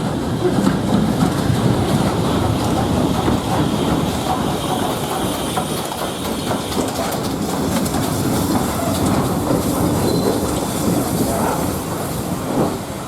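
A train running along the track, its wheels clattering over the rail joints in a loud, steady roar, with a brief high wheel squeal near the end.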